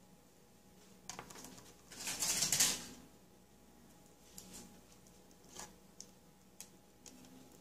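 Quiet room tone with a faint steady hum, a short rustling noise about two seconds in, and a few faint clicks after it.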